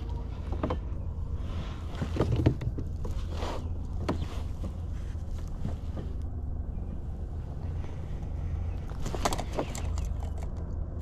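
Light knocks and rustles of a fish and fishing gear being handled in a kayak, over a steady low rumble.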